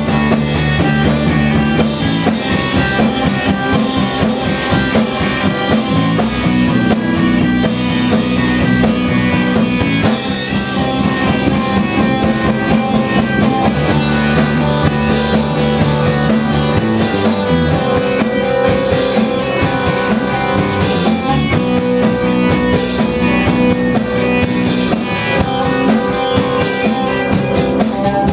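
Rock band playing, with a drum kit keeping a busy steady beat over guitar and sustained low notes.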